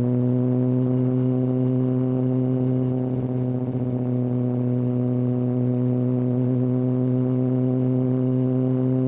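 Kawasaki ZX-6R inline-four through a Hindle aftermarket exhaust, running at a steady engine speed as a low, even drone, with a slight dip about three seconds in.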